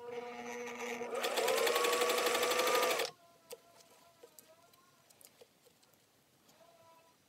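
Singer 500A sewing machine: the motor hums, then speeds up into a fast, even stitching run for about two seconds, rising in pitch, and stops abruptly about three seconds in. A faint hum starts again near the end.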